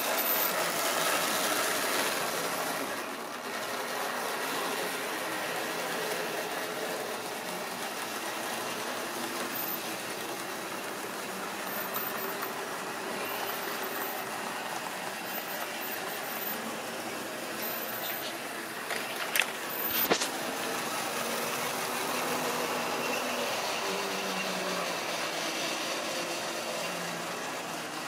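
Model railway trains running on a layout: a steady whirring of the small electric locomotive motors and the rattle of wheels on sectional track, with a few sharp clicks about nineteen to twenty seconds in.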